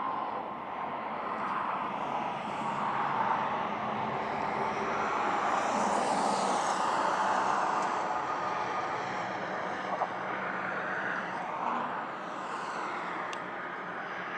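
Vehicle noise that swells to a peak about halfway through and then eases off again, typical of traffic passing.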